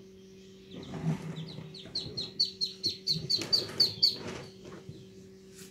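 Newly hatched ducklings peeping: a rapid run of short, high, falling peeps, about four a second, loudest around the middle and fading out near the end.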